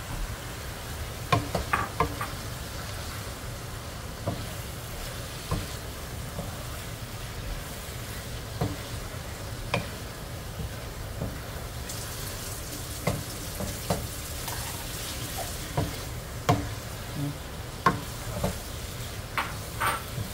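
Spatula scraping and knocking irregularly against a nonstick frying pan as diced turnip curry is stirred, over a steady low hum and a light sizzle of the frying.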